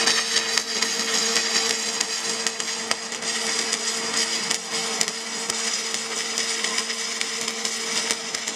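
Stick welding with an E308-16 stainless steel electrode on DCEP: a steady crackling arc with frequent sharp pops and a constant hum underneath.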